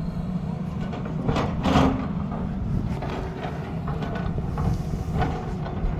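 Tata Hitachi excavator's diesel engine running steadily under load. Louder scraping surges come over it at times, the biggest about a second and a half in.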